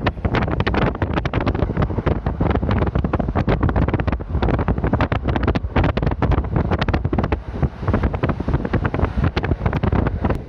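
Wind buffeting the microphone through the open window of a moving Kintetsu express train, in irregular gusts, with the train's running noise underneath.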